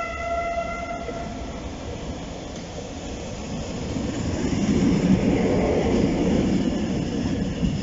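SNCB class 62 diesel locomotive passing close: its horn holds one steady note that stops about a second in, then the rumble of its two-stroke EMD V12 diesel engine swells as it goes by, loudest past the middle.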